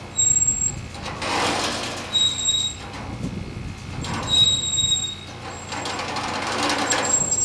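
Old farm water-pumping windmill turning, its metal gearing squeaking with a short high squeal about every two seconds. A noisy rush swells and fades between the squeaks.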